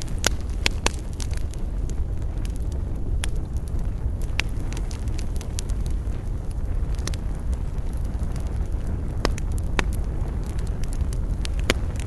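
Wood campfire crackling, with sharp irregular pops and snaps scattered over a steady low rumble of the burning fire.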